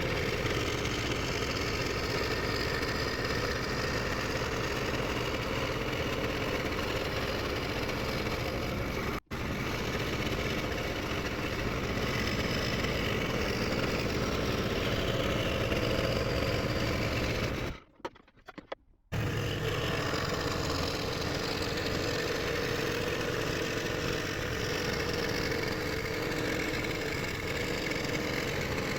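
Scroll saw running with a spiral blade cutting through thin 3.6 mm plywood, a steady buzz. It breaks off for an instant about nine seconds in and again for about a second midway.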